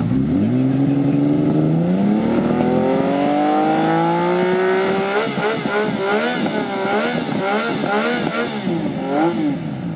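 Vintage Japanese motorcycle engine being revved. The revs climb smoothly for about five seconds, then the throttle is blipped up and down several times in quick succession.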